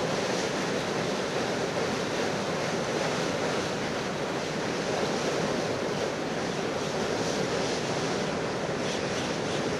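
Steady rushing noise, even and unbroken, with no distinct knocks or tones.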